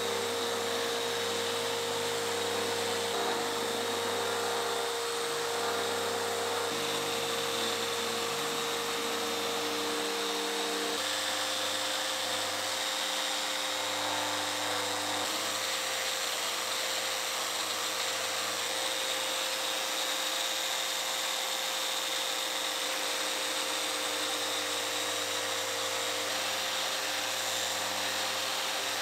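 Festool Rotex RO 125 random orbital sander running steadily across a mahogany door for its final sanding, a constant motor whine whose pitch steps slightly higher about eleven seconds in.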